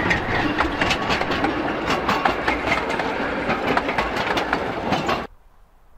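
Two-foot narrow gauge passenger coaches passing close by, their wheels running on the track with a rapid, irregular clicking clatter. The sound stops abruptly about five seconds in.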